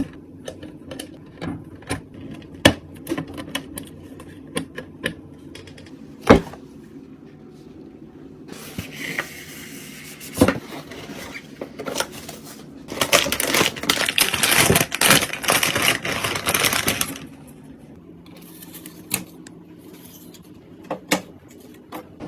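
PC parts being handled during assembly: a run of sharp, irregular clicks and knocks, with a stretch of dense rattling and rustling noise about thirteen to seventeen seconds in.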